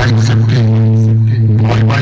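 Loud music with a steady deep bass note held throughout and a pitched melody line that comes and goes above it.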